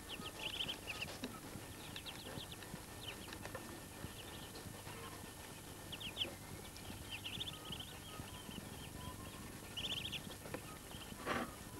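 Muscovy ducklings peeping: runs of quick, high cheeps, several notes at a time, over and over. Near the end comes one brief, louder sound.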